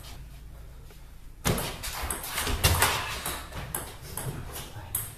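Table tennis rally: the ball clicking sharply off the paddles and the table in a quick, uneven run of hits, roughly two a second. It starts with the serve about a second and a half in, after a short quiet spell.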